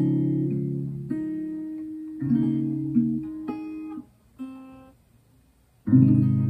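Acoustic guitar chords played by a beginner in practice, one chord after another with short pauses, then a break of over a second and a loud chord near the end. A note goes wrong in the playing.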